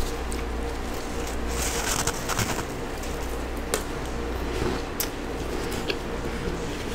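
Freezer frost being bitten and chewed close to a microphone: a dense, crisp crunching from about one and a half to two and a half seconds in, then a few single sharp crunches. A steady low hum runs underneath.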